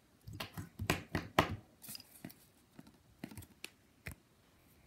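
Pokémon trading cards being handled and slid against each other: a quick run of papery flicks and rustles in the first second and a half, then a few scattered light clicks.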